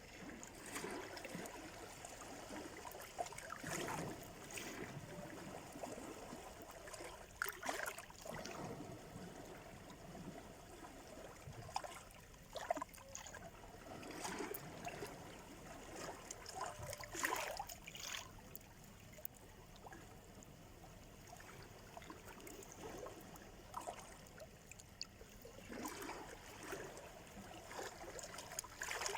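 Sea surf washing on the shore: irregular splashes of water that swell and fade every few seconds.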